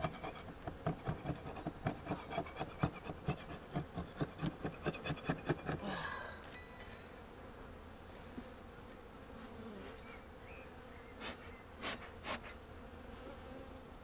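Quick, regular scraping strokes, about three a second, on a beehive's frames and wax, stopping about six seconds in, over honeybees buzzing. A few light knocks follow later.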